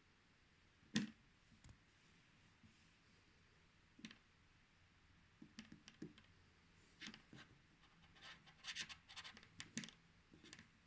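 Faint clicks, taps and light scratches from fingers handling a smartwatch. A sharp click comes about a second in, and a quick run of taps near the end.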